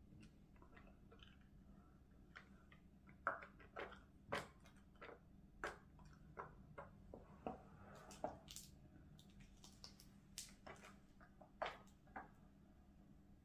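Scattered soft crinkles and clicks, a few a second, from hard wrapped candies being handled and eaten, with their plastic wrappers rustling.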